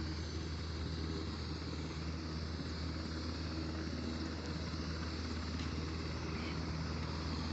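Steady low drone of an aircraft flying overhead, holding an even pitch throughout.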